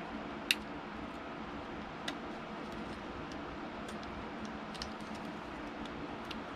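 Light clicks and ticks of small tools and parts being handled during a Nintendo Switch Lite screen repair, with one sharper click about half a second in and another about two seconds in, over a steady background hum.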